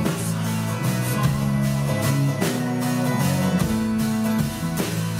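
Live band music: a strummed acoustic guitar over an electric bass line, with a steady beat.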